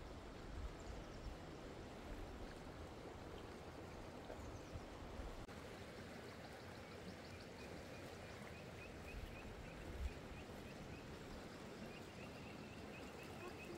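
Steady rushing of a mountain river. From about halfway, a bird chirps faintly and repeatedly over it.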